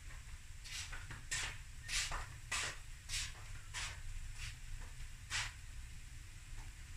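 Boerewors and rice frying in a pan, the fat spitting in short hissy bursts about once or twice a second, over a low steady hum.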